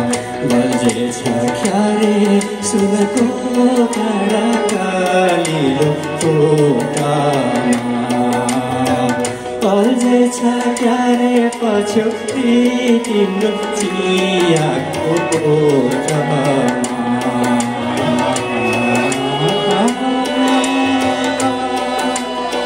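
A man sings live into a microphone over a Yamaha PSR-S970 arranger keyboard playing the accompaniment with a tabla-style drum rhythm, all amplified through PA speakers. The sung melody holds long notes that slide up and down.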